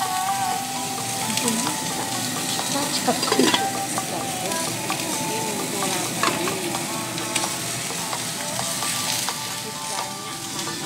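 Salmon steak frying in hot oil in a pan, a steady sizzle with scattered crackles and pops.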